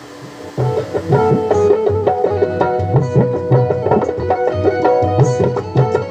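Music with a steady drum beat playing through a homemade 200-watt stereo DC amplifier and its speakers. It comes in about half a second in.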